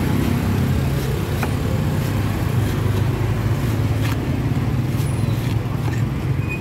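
Steady low rumble of a running motor or nearby road traffic, with faint knife clicks about once a second as a cleaver shaves the husk off a young green coconut.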